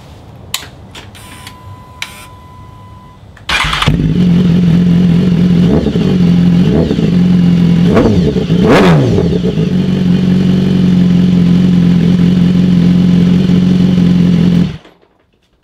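BMW S1000RR inline-four sportbike engine breathing through an SC Project GP70-R titanium slip-on muffler: after a few clicks and a brief steady tone it starts about three and a half seconds in and idles. It is blipped four times in quick succession, settles back to a steady idle, and is switched off near the end.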